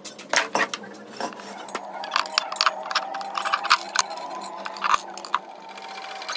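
Loose steel parts of a Toyota Hiace wheel hub clinking and knocking as they are handled: the hub, its bearing, lock nut and wheel studs. The clinks come irregularly, a dozen or so sharp ones.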